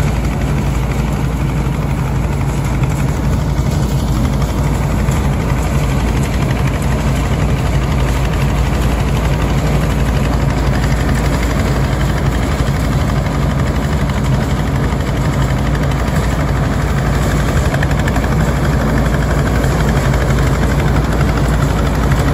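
Engine and cutting gear of a self-propelled grass-cutting machine running steadily as it drives through tall grass and cuts it. There is a constant low hum with an even noise over it.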